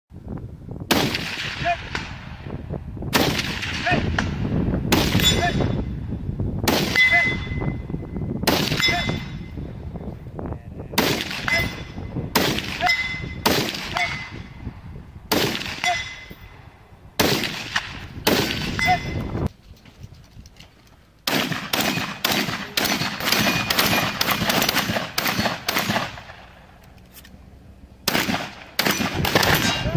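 AR-15 rifle shots fired one at a time, about one every two seconds, each echoing, with a faint ping from struck steel targets. After a short pause comes a fast string of shots, then another pause and more shots near the end.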